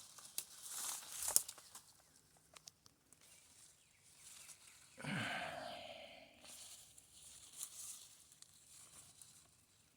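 Footsteps and rustling through dry brush, with crackling snaps in the first second and a half. About halfway through comes a short, low vocal sound that falls in pitch.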